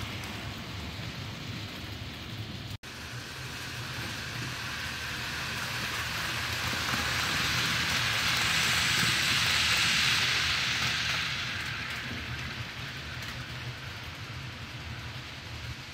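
HO scale model train of hopper cars rolling along the track, a steady rushing clatter of small metal wheels on rails that grows louder as the cars pass close, peaks, then fades as the train moves away.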